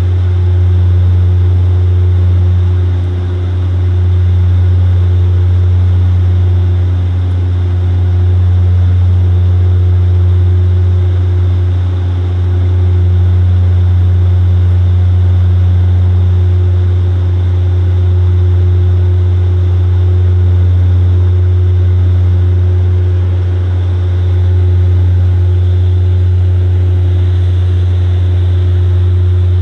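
Cabin drone of a DHC-8-Q400's turboprop engines and propellers during the climb, heard from a window seat beside the propeller: a loud, steady low hum with a few fainter higher tones, swelling and dipping gently every few seconds.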